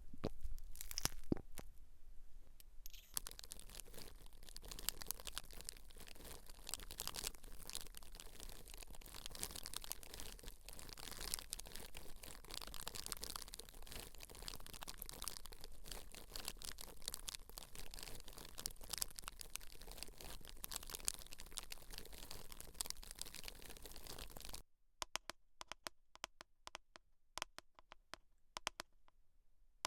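Close-miked crackly scratching on hair and scalp, a dense run of small rustles and crackles. About 25 seconds in it stops abruptly, leaving only sparse soft clicks and taps.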